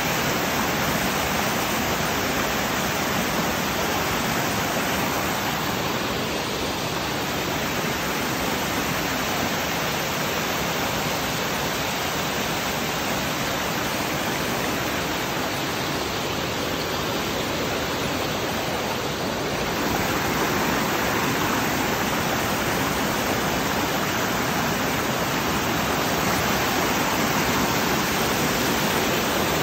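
Small waterfall cascade: water pouring over boulders in a forest stream, a steady, even rush of white water that gets a little louder for the last third.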